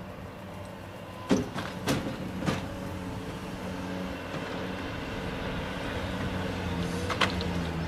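A skid-steer loader's engine running steadily at idle. Sharp metal clicks come from vise grips and a slide-hammer tool being handled: three about a second in and one more near the end.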